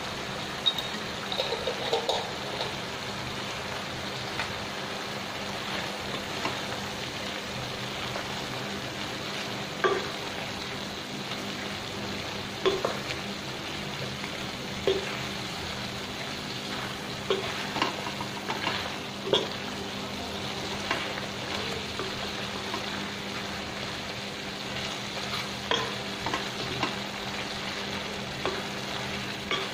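A wooden spatula stirring chicken and Malabar spinach in a stainless steel pot over steady sizzling, with short knocks and scrapes of the spatula against the pot every couple of seconds.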